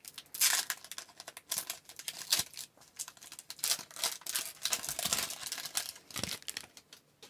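Trading-card pack wrapper being torn open and crinkled by hand, a run of irregular crackles and rustles that dies away near the end.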